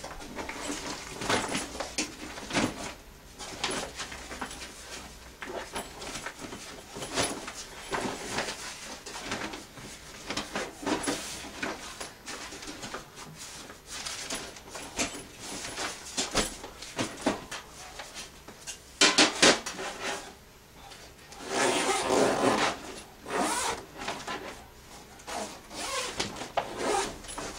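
Rustling and scraping as a camp stove is slid into its padded fabric carry bag and the bag is handled, with louder bursts of rustling about two-thirds of the way through.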